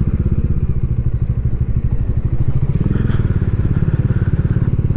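Bajaj Dominar 400's single-cylinder engine running at low revs, a steady rapid pulse of firing strokes.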